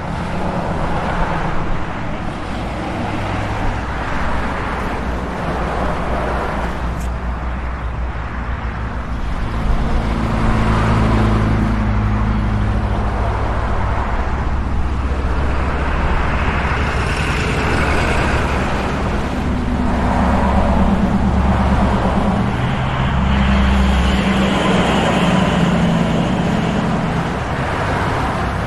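Congested street traffic: many vehicle engines running and idling together in a steady rumble, growing louder about a third of the way in.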